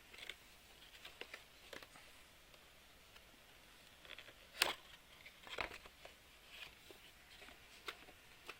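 Kit packaging being handled: scattered light rustles and clicks, the sharpest about four and a half seconds in.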